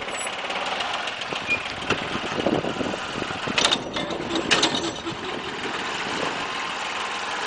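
Mitsubishi MT1601D compact tractor's engine running as it drives along, with the rear rotary tiller in tow. Two short metallic clanks come through about halfway.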